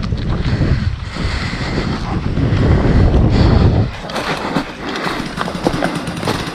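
Wind rumbling on the microphone for about four seconds, then a quieter run of rapid clicks.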